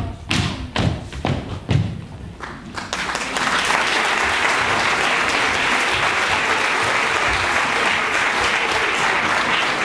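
Feet stamping in step on a stage floor, about two thumps a second, for the first three seconds; then an audience applauding steadily.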